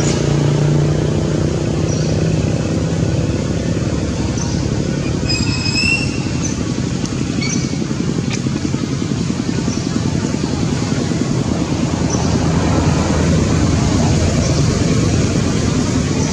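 An engine running steadily, with a low hum in the first few seconds, and a few short high chirps about five seconds in.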